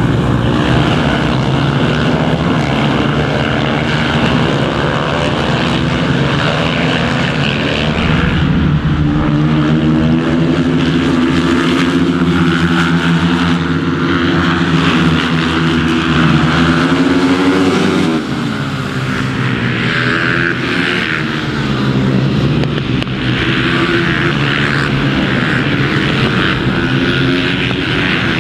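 Several supermoto race motorcycles' engines at racing revs, the pitch climbing and dropping over and over as riders accelerate, shift and brake for corners. About 18 seconds in there is a sharp fall in pitch as bikes pass close by and move away.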